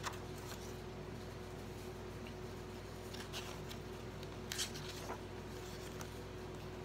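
Sheets of printed craft paper being handled and leafed through: a few soft, brief rustles, about a second apart in places, over a steady faint hum.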